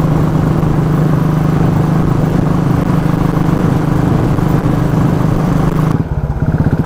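Motorcycle engine running at a steady speed under a rushing noise, picked up by the rider's on-board mic. About six seconds in, the rushing noise drops away suddenly and the engine's even pulsing beat comes through.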